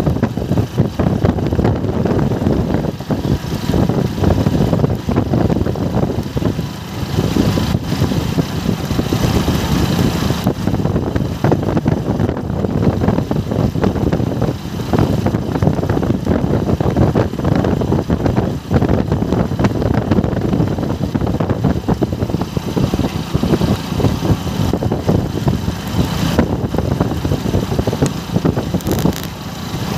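Motorcycle ridden at cruising speed on a concrete road: a steady, loud rush of engine, tyre and wind noise.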